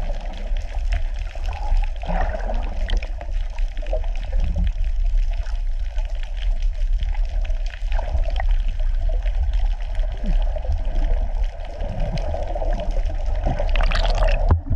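Underwater sound picked up through a camera's housing: a steady low rumble of moving water with gurgling and scattered crackles, swelling to a louder rush of water near the end.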